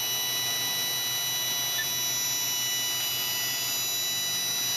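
Haas VF2 vertical machining center running: a steady high-pitched whine made of several tones over a low hum.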